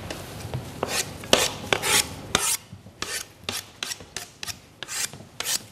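Kitchen knife scraping chopped tomato off a cutting board into a glass bowl: a run of irregular short scrapes and knocks of the blade on the board.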